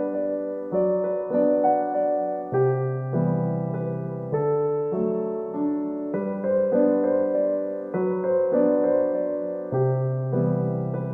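Background music: a soft electric piano playing slow, sustained chords that change about every second.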